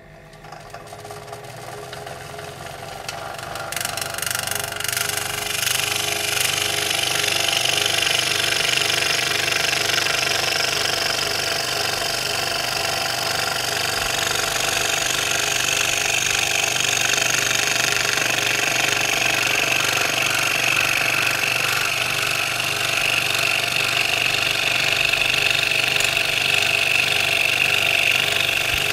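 Macallister MSS125 electric scroll saw starting and building up to speed over the first few seconds, then running steadily with its blade reciprocating while it cuts a curve in a knotty pine board.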